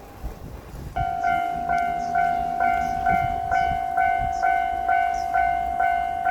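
A Japanese level crossing's electronic warning bell starts about a second in and rings a steady, even 'kan-kan' of about two strokes a second.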